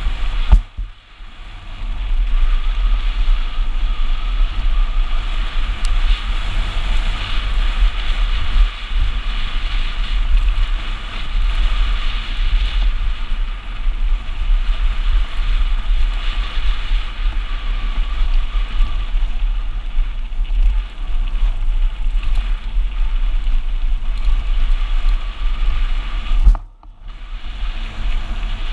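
Wind buffeting the action camera's microphone over the crunch and rattle of a mountain bike's tyres rolling fast down a gravel track. It is a steady rush that drops away briefly twice, about a second in and near the end.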